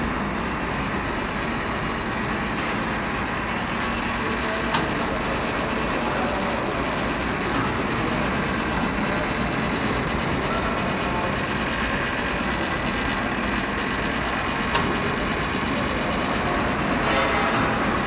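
Steady din of textile mill machinery running in a factory hall.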